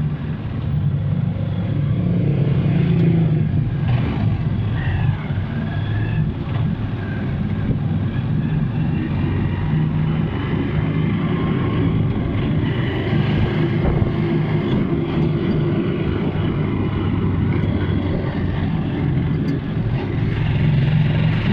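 Motor vehicle engine running steadily with road and traffic noise, a continuous low hum with no breaks.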